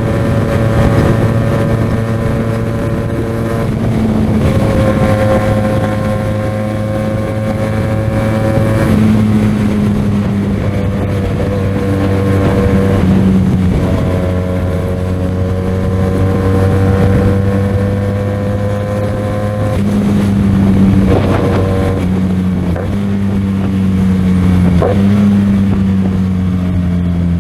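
QJMotor SRK 400 parallel-twin motorcycle engine running at speed, its note gliding and then stepping to a new pitch every few seconds as the rider changes gear. Wind and road noise run underneath.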